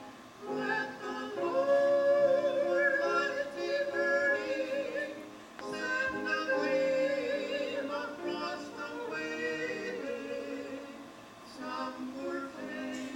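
Gospel singing: a voice holding long notes with vibrato, with brief breaks between phrases about halfway through and near the end.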